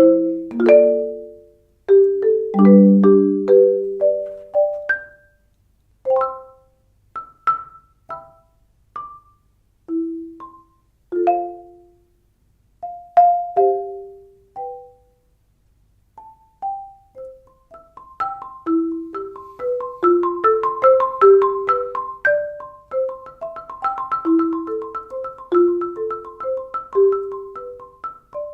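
Marimba played with Marimba One Wave Wrap mallets: a slow, sparse line of single notes with gaps between them, then from about 18 s a faster passage of repeated high notes over a moving lower melody.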